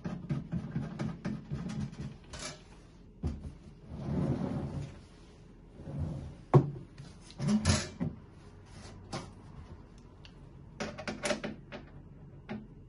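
Handling noise from assembling a stainless-steel waffle maker: the metal unit is tilted and moved on the table while its rubber feet are screwed on, giving irregular clicks, knocks and brief scraping. A single sharp knock about halfway through is the loudest sound.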